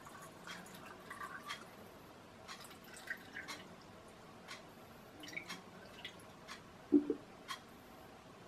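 Liquid trickling and dripping through a small plastic funnel into a part-filled plastic bottle, with faint, irregular drips and a louder dull knock about seven seconds in.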